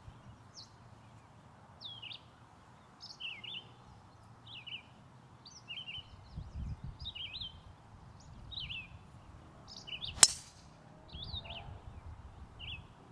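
Birds chirping on and off throughout. About ten seconds in comes a single sharp crack, by far the loudest sound: a driver striking a golf ball off the tee.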